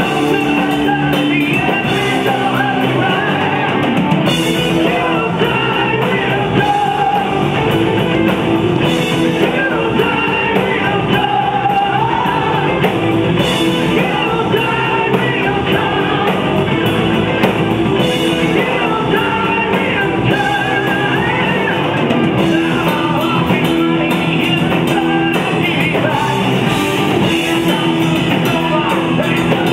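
Live rock band playing at full volume, with guitars, drums and singing.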